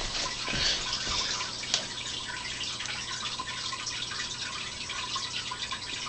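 A burning fire patty's flame, a steady hiss with fine crackles, a few louder pops in the first couple of seconds.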